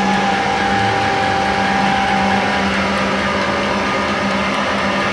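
Live harsh noise music: a dense, unbroken wall of distorted electronic noise with a steady low drone under it and a held higher tone that fades out about two and a half seconds in.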